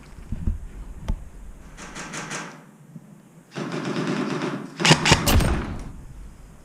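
Airsoft gun fired in a quick string of semi-automatic shots about five seconds in, the loudest part. Before that come a few sharp thuds and stretches of scuffling noise.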